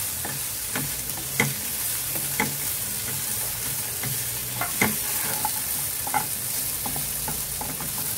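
Bitter gourd strips, onion and green chillies frying in coconut oil in a nonstick pan, sizzling steadily while a wooden spatula stirs them, with irregular scrapes and knocks against the pan about once a second.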